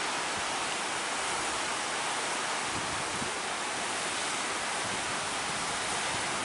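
Steady rush of breaking sea surf, an even hiss with no separate crashes.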